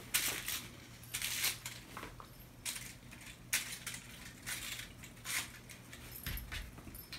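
Kittens playing, with irregular crinkly rustling and scrabbling about once a second, over a faint steady low hum.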